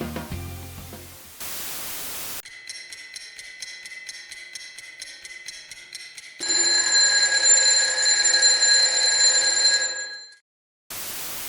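Background music fades, then a burst of radio static. Next comes a rapid pulsing electronic signal for about four seconds, then a loud, steady electronic tone of several pitches for about four seconds that cuts off suddenly. After a brief silence there is another burst of static.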